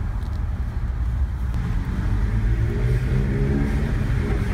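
BMW N52B30 straight-six's exhaust through a BMW Performance rear silencer with the midpipe deleted, heard from inside the cabin: a deep low drone that rises in pitch from about halfway as the car pulls away under throttle.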